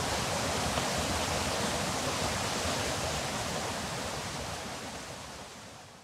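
Water pouring over a wide, low rock-ledge waterfall into a creek pool: a steady rushing hiss that fades out toward the end.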